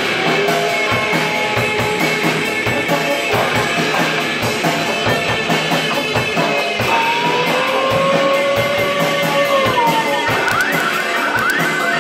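Live band music: electric guitar and drum kit playing with a steady beat, with brass horns blowing over it. A long held note slides up about seven seconds in and falls away about ten seconds in.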